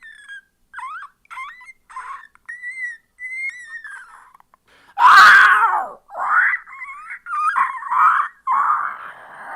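A person's voice making strange non-speech noises: high, squeaky gliding and warbling calls, then a loud, harsh scream-like cry about five seconds in, followed by more rapid wavering squeals.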